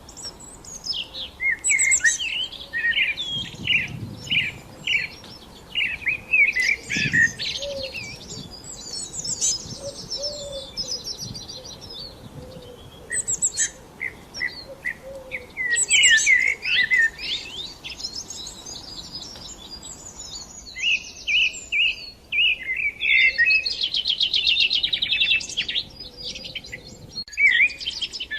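Songbirds chirping and singing: quick runs of short, high repeated notes and trills, with brief pauses between phrases.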